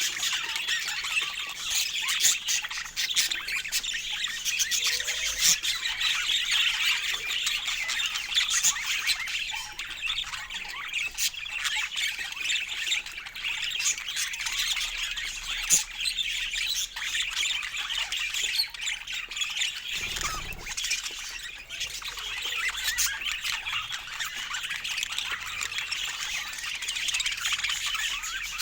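A flock of budgerigars chattering continuously, a dense mix of squawks, chirps and warbles.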